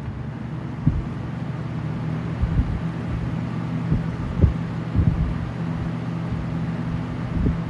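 Lasko-made 20-inch box fans running: a steady motor hum under a rush of moving air, with a few low thumps of air buffeting the microphone.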